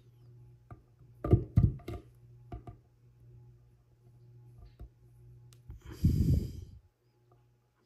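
Small squishy toy figures being handled and set down on a plastic display stand: a quick cluster of knocks and taps about a second in, a few lighter taps after, then a short breathy rush of noise near the end.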